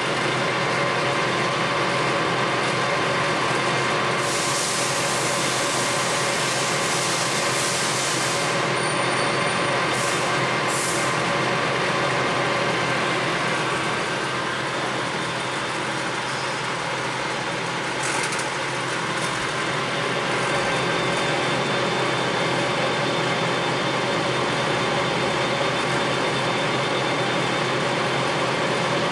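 Clausing Colchester Master 2500 engine lathe running under power with a steady gear whine and machine hum. Several short bursts of high hiss come in the first half and again near the middle.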